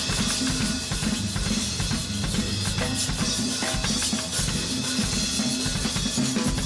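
Background music with a drum kit and a bass line playing a steady beat.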